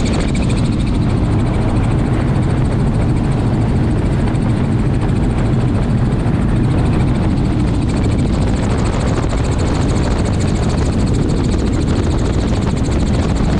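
Helicopter in flight heard from inside the cabin: a steady, loud rotor and engine noise with a rapid, regular beat from the rotor blades.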